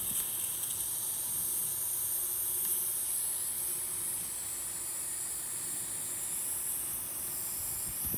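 Butane hissing steadily as an upside-down can of Ronson Multi-Fill butane is pressed down onto a butane torch's fill valve, refilling the torch's tank.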